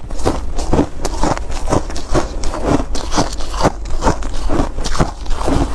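Shaved ice crunching in quick, evenly repeated strokes, about three a second.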